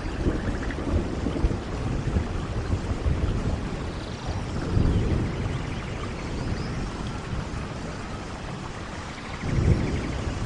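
Steady rain falling in a forest with low rolling thunder, the rumble swelling about halfway through and again near the end.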